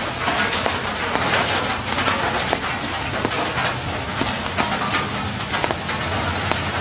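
Steady rain falling, with many small drips and splashes striking wet tiles.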